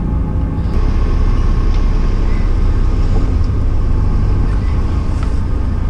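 Fishing boat's engine running steadily, a continuous low rumble.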